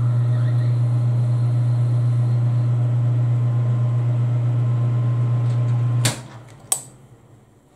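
Metal lathe running with a steady low hum as the chuck spins. About six seconds in the motor is switched off and the hum cuts off suddenly, followed by two sharp clicks.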